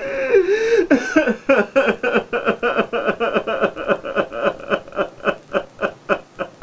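A man crying without words: a long wavering wail, then rapid rhythmic sobs, about four or five a second.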